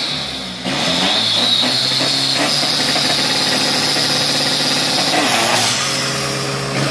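Drag-racing pickup truck engines running loudly at the start line. The engine note jumps up about half a second in and is then held at a steady pitch over a rushing hiss while the trucks wait to launch.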